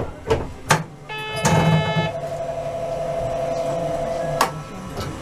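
Electronic signal sounding in a tram driver's cab: a brief chime, then a steady buzzer tone held for about three seconds that cuts off with a sharp click. A few clicks from the cab controls come before it.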